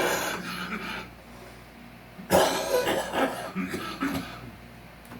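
A man coughing: one cough right at the start, then a longer fit of several coughs about two seconds in.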